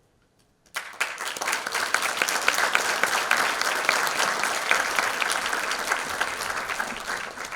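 Audience applauding: the clapping breaks out suddenly from near silence about a second in, holds steady as dense clapping, and begins to die away near the end.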